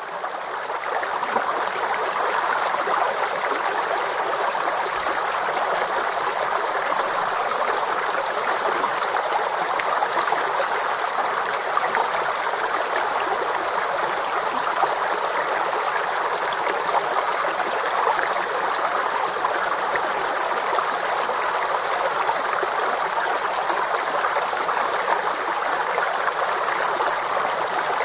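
Water stream flowing steadily, a continuous babbling rush of water with no pauses; it fades in over the first second or two.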